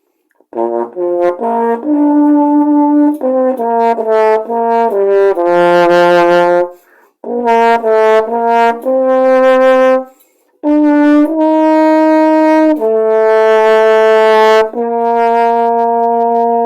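Yamaha 301M marching baritone (marching trombone) being played: a melodic phrase of quick notes leading into long held notes, broken by two short pauses for breath. The tone is bright and sounds very much like a trombone rather than a euphonium.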